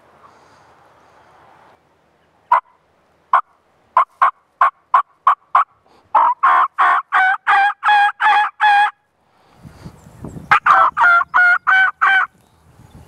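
Turkey yelping. Single short clucks come faster and faster, then run into a string of about eight yelps. A second run of yelps follows a little later over some rustling.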